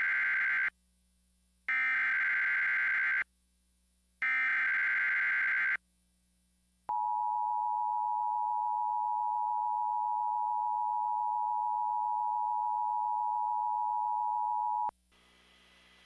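Emergency Alert System broadcast tones: three bursts of the warbling SAME digital header (the first already under way), each about a second and a half with short silent gaps, then the two-tone EAS attention signal held steady for about eight seconds and cut off abruptly. The sequence marks the start of a severe thunderstorm watch alert.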